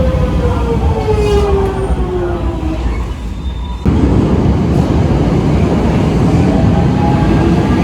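Electric train in motion, a rumble with a whine from its motors that falls steadily in pitch as it slows. The sound breaks off about four seconds in and gives way to a louder rumble, with the whine rising again near the end as it picks up speed.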